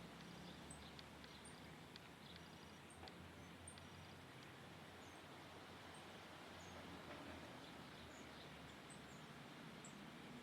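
Faint, short, high-pitched bird chirps, scattered about once a second over a steady low background hum.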